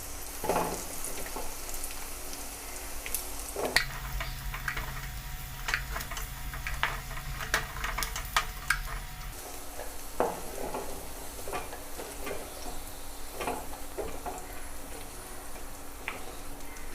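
Marinated prawns sizzling in hot coconut oil in a wok, with a ladle clicking and scraping against the pan as the fried prawns are scooped out.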